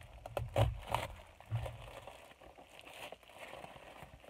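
A plastic-wrapped package being handled: several knocks and thumps with crinkling plastic in the first two seconds, then fainter rustling.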